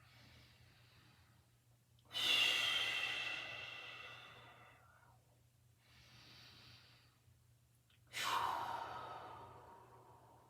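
A person taking deep decompression breaths: two long, forceful breaths, each starting sharply and fading away over a couple of seconds, with a fainter breath between them.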